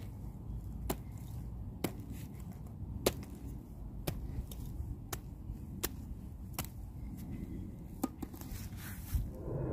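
Small three-tined hand cultivator chopping and scraping through moist, clumpy garden soil, with sharp clicks about once a second as the metal tines strike the clods. Underneath is a low steady rumble of an aircraft passing overhead.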